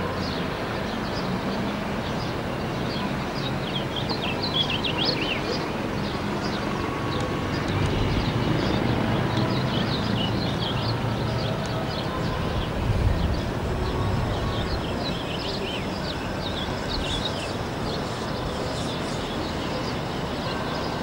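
Outdoor city ambience: a steady rumble of traffic that swells from about 8 to 14 seconds in, with many small birds chirping.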